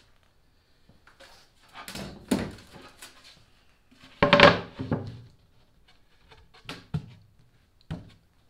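A thin plywood panel is handled and laid onto a wooden console frame, giving a series of scrapes and wooden thunks and knocks. The loudest comes about four seconds in, and a few short knocks follow near the end.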